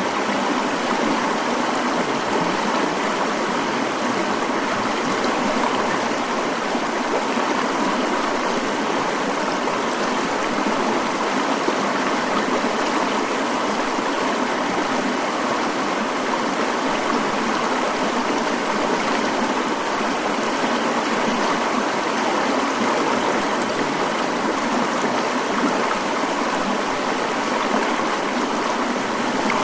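Mountain stream flowing, a steady even rush of water with little low rumble.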